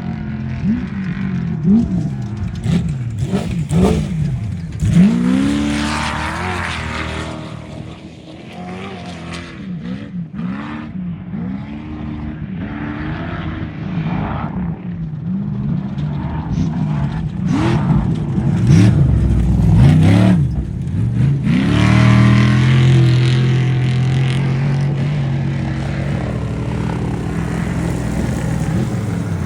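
Off-road race truck engines revving hard, their pitch sweeping up and down again and again as they accelerate and back off. The sound dips for a moment about a third of the way in, then builds to a louder, steadier full-throttle run a little past two thirds through.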